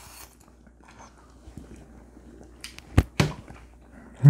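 People eating jokbal with chopsticks: faint chewing, with a few sharp clicks about three seconds in, one much louder than the rest.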